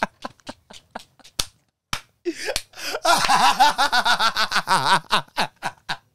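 A man laughing in rapid bursts, with a few sharp smacks in the first two seconds and again near the end.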